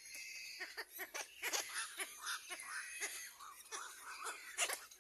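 Baby crows calling: a quick, uneven run of short calls, several a second.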